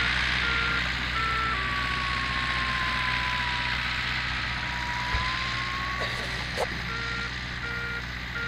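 Radio-control variometer telemetry tones over a steady hiss: short evenly repeated beeps, then for several seconds a single held tone that slowly sags in pitch and rises again, then beeps again. The tones track the glider's climb and sink.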